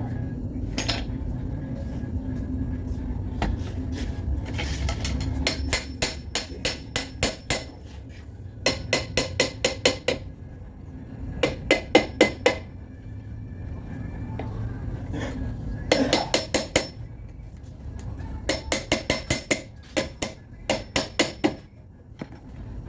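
A hammer striking steel on a car's rear brake and hub assembly in bursts of several quick blows, each strike ringing. A steady low hum runs underneath.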